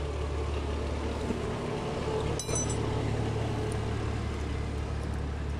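Steady low background hum, with a single short metallic click with a brief ring about two and a half seconds in, as parts are worked loose from a stripped-down motorcycle engine's timing-chain side.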